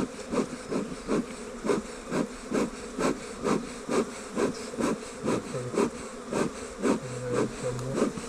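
Honey bee swarm buzzing close to the microphone, with a regular pulsing about three times a second and a few brief louder hums in the second half.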